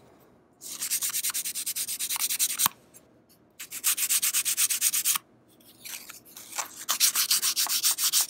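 Small piece of sandpaper rubbed by hand along a wooden straight-razor scale, in three bursts of quick short strokes, several a second, with brief pauses between, lightly taking grime off the wood.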